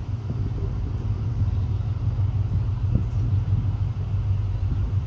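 Diesel locomotive engine running with a steady low drone as the train approaches along the curve.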